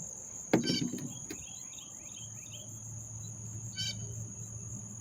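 Steady high-pitched drone of insects, with a bird's short falling chirps about a second in and a brief call twice. A single knock from something being handled sounds about half a second in.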